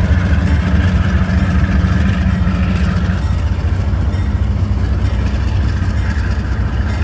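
Diesel freight locomotives running steadily, a deep low rumble, with a steady hum that drops away about three seconds in.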